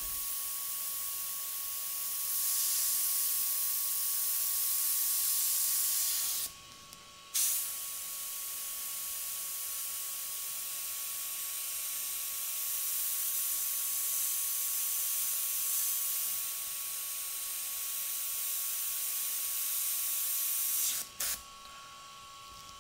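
Iwata HP-CS Eclipse gravity-feed airbrush spraying paint: a steady high hiss of air through the nozzle, broken by a short pause about six seconds in and stopping shortly before the end.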